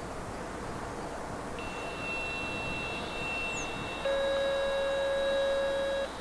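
Steady electronic tones: a faint high tone for about two and a half seconds, then a louder, lower tone for about two seconds that cuts off suddenly.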